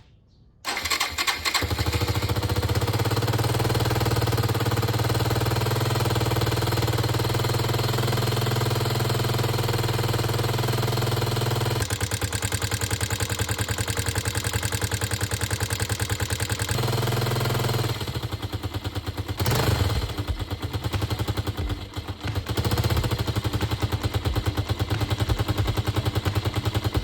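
Suzuki Djebel 200's single-cylinder four-stroke engine starting about a second in and idling with a regular beat. It is revved a few times about 18 to 23 seconds in, then settles back to idle. It is running just after its valve clearances were adjusted to cure an engine noise.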